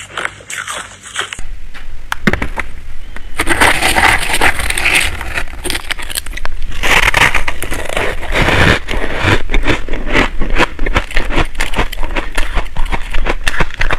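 Ice crunching between teeth for about the first second, then a metal spoon scraping and digging through a tray of finely crushed, frosty ice, with continuous crunching and crackling of the ice grains.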